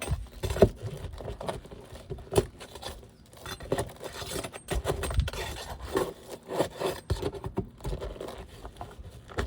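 Flat bar and scraper scraping and prying under asphalt roof shingles, breaking the sealant bond to reach the nails in the nail strip: irregular scrapes with sharp knocks.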